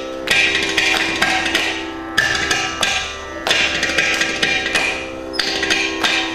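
Carnatic percussion ensemble of mridangams with ghatam playing fast, dense strokes over a steady drone.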